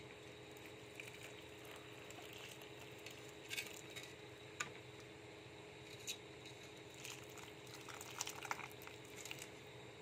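Warm milk poured in a thin stream into a steel pan of semolina halwa: a faint trickling and squishing, with a few light metal taps scattered through the second half.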